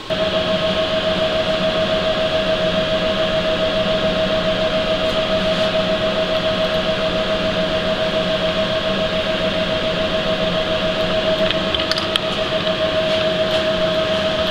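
Milling machine running a shop-made 8 1/4 inch fly cutter across a cast iron exhaust manifold flange, a steady whine with a fast, regular pulse as the single cutting tool strikes the metal on each turn. A few light ticks near the end.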